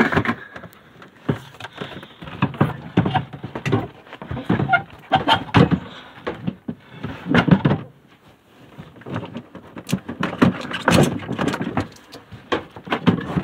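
Plastic and metal salvaged car parts being handled and shifted while rummaging, giving irregular knocks, clatters and rattles with short pauses between them.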